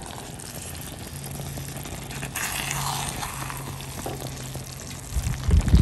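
A spatula stirring and scraping through thick groundnut and egg stew as it simmers in a pot, with a louder scrape about two seconds in. A faint steady low hum runs underneath, and a few loud low thumps come near the end.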